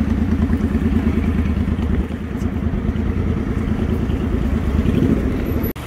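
A motor vehicle engine running close by over road traffic, a steady low rumble with a fast, even pulsing beat. The sound drops out abruptly near the end.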